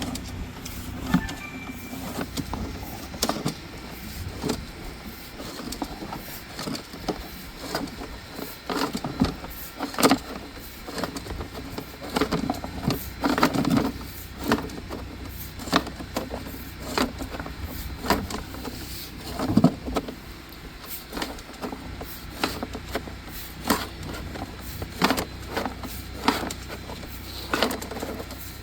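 Irregular clicks and knocks from the push cable of a RIDGID sewer inspection camera being fed into the line, over a steady low hum.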